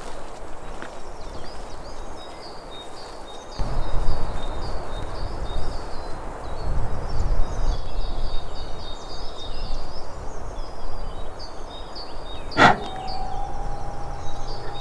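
Breeze buffeting the microphone, picking up a few seconds in, under birds chirping. Near the end a single sharp shot from a Daystate Huntsman Revere PCP air rifle cracks out, followed by a faint steady hum for about two seconds.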